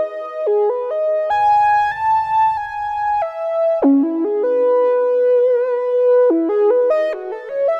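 Roland JD-800 synthesizer (software version) playing a factory patch: a stepwise melody of held notes, with vibrato on a long note about halfway through. A low buzzing layer sounds under the notes between about one and three seconds in.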